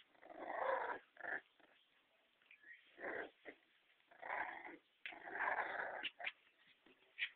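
Two bull terrier and Staffordshire terrier puppies growling as they fight, in several rough bursts of under a second each with short gaps between, and a few short sharp sounds near the end.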